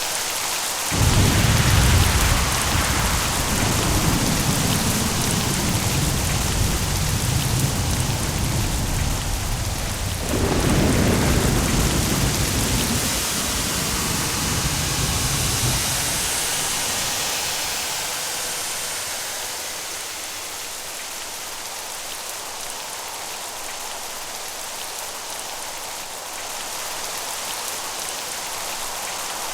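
Steady rain with thunder: a clap about a second in that rolls on, a second peal near the middle, then the rumble dies away and only the rain remains.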